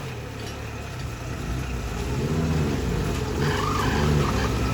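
Off-road 4x4's engine running and revving, its pitch rising and falling several times in the second half.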